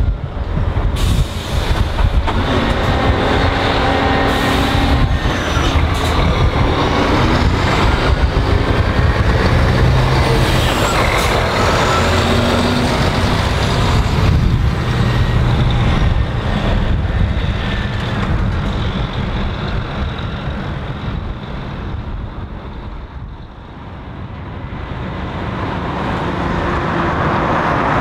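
Scania R-series truck's diesel engine pulling away and accelerating, with several short sharp air-brake hisses in the first few seconds, fading as it drives off. Near the end a second truck's engine, a Volvo FM, grows louder as it approaches.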